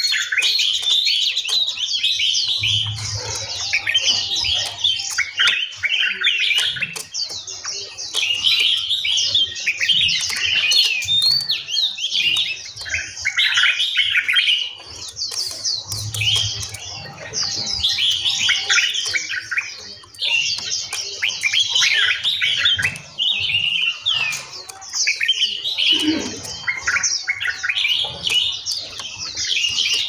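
A chorus of several songbirds chirping and singing at once: fast, overlapping high chirps and short trills, with no break.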